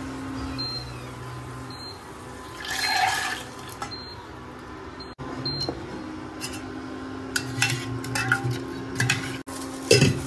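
Kitchen cooking sounds: pots and utensils clinking, with a short hiss about three seconds in and several sharp clinks near the end, over a steady hum.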